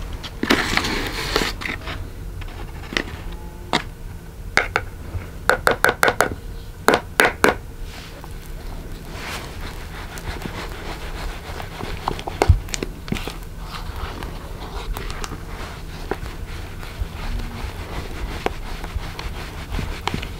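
Clinks and knocks of a spoon and bowl while cake batter is being made, a quick run of sharp taps in the first half, then quieter scattered ticks of handling and stirring.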